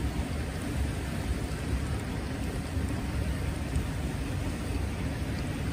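Steady rushing of flowing hot-spring water, an even noise that is strongest low down.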